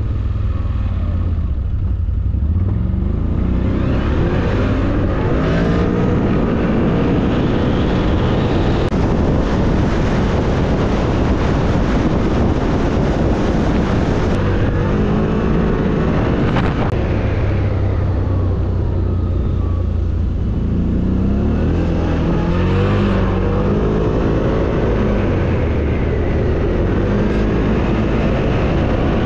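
CFMOTO G3 1000's engine running under way. It speeds up twice, with the engine note rising, starting about 2 s in and again about 20 s in, and settles into a steady drone between.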